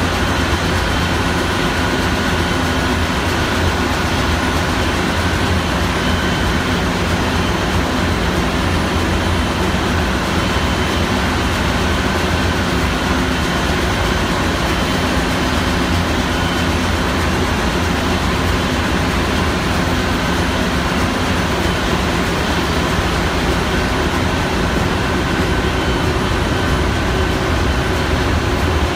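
Steady machinery noise of a ship's engine room: a constant low drone with several steady humming tones over it, unchanging throughout.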